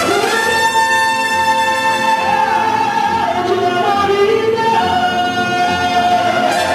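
A woman sings into a microphone with a mariachi band, holding long notes that step from pitch to pitch, over violins and a steady low beat.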